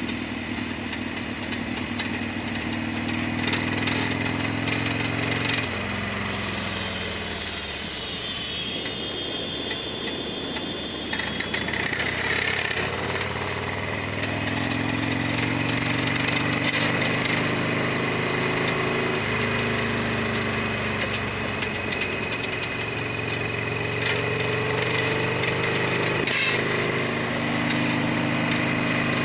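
Modified Harley-Davidson XL1200R Sportster's V-twin engine running while riding, its pitch stepping up and down with changes in speed and gear.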